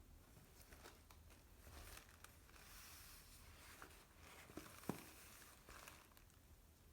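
Faint rustling and crinkling of packaging being handled and unwrapped, with one sharp little click about five seconds in.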